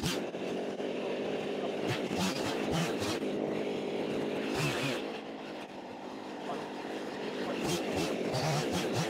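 A small engine running steadily at low speed, with several short sharp crackles over it.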